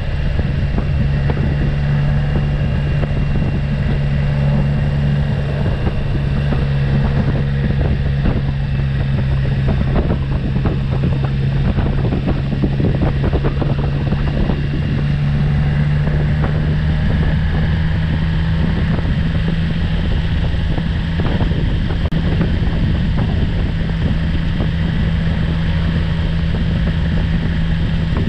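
Motorcycle engine running at a steady cruising speed, heard from the rider's seat with wind noise on the microphone; the engine note rises slightly about halfway through.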